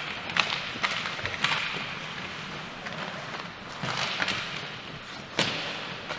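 Ice hockey play on a rink: about six sharp knocks of sticks and puck striking the ice and boards, spaced unevenly, one of the loudest near the end, over a steady hiss of rink noise.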